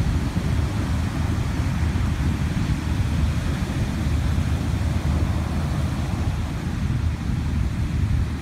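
Heavy hurricane surf breaking in and around wooden pier pilings, mixed with strong wind buffeting the microphone: a steady, dense noise, heaviest in the low end.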